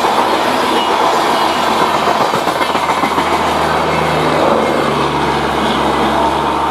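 Kongu Express coaches passing, their wheels clattering over the rail joints in a steady clickety-clack. In the second half a low steady engine hum comes in underneath.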